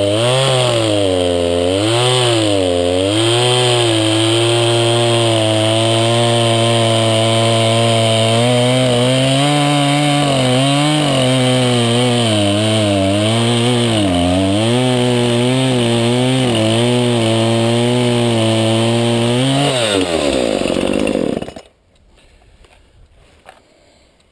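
Craftsman 20-inch 50cc two-stroke chainsaw running, its engine pitch repeatedly rising and falling. About twenty seconds in, the engine note sinks and the saw stops, leaving near quiet.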